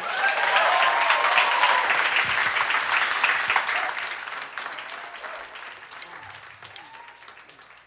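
Audience applauding for the horn section. The clapping is loudest at first and dies away over several seconds.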